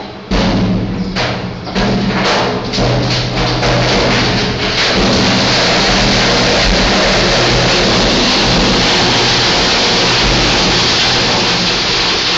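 Loose bulk material pouring down a steel chute onto a conveyor. It starts with separate clattering impacts that come faster and faster, and from about five seconds in they merge into a continuous rush over a steady machine hum.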